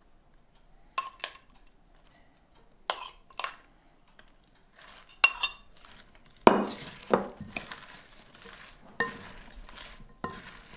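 Metal spoon clinking against glass bowls: a few sharp clinks while the dressing is scraped out of a small glass bowl, one of them ringing briefly. Then the spoon tosses cut cabbage and other salad vegetables in a large glass mixing bowl, with rustling leaves and repeated knocks against the glass.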